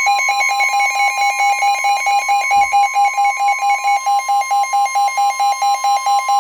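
NOAA Weather Radio warning alarm tone: a steady, loud 1050 Hz tone announcing a warning, with a rapid pulsing electronic beep over it, about five beeps a second.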